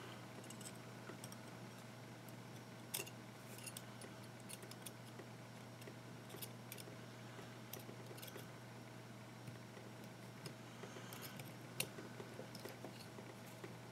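Small metallic clicks and scrapes of steel tweezers against the coils and deck of a rebuildable dripping atomizer as cotton wick is worked through the coils, over a steady low hum. The sharpest clicks come about three seconds in and near the end.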